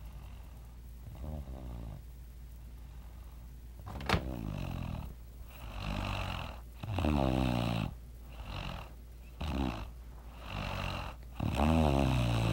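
A sleeping person snoring loudly: rasping, pitched snores in a string of short pulses with breaths between, the loudest near the end.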